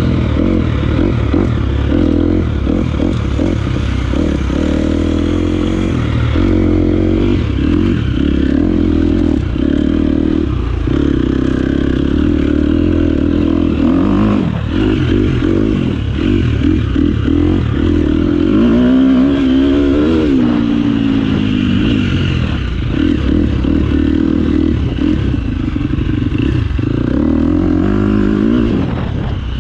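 Four-stroke single-cylinder 250cc dirt bike engine running under constantly changing throttle on a trail ride, with a rev that rises and falls about two-thirds of the way in. Frequent knocks and rattles from the bike over rough ground.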